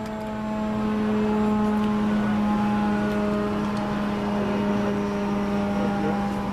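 Electric radio-controlled model airplane's motor and propeller making a steady, pitched buzz as it flies an aerobatic maneuver overhead, getting louder about a second in.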